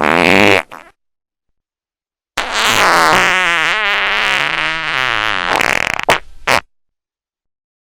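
Prank fart sound effects: a short blast, then after a pause a long fart with a wobbling pitch lasting about four seconds, followed by two quick short puffs.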